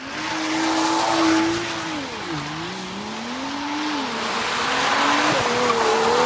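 Car engine pulling hard: its pitch holds, drops sharply about two seconds in as if at a gear change, then climbs again as it accelerates, over a hiss of tyre and road noise.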